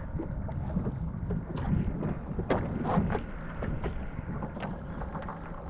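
Wind buffeting the microphone over the steady low rumble of a fishing boat at sea, with scattered sharp clicks and knocks, the loudest about halfway through.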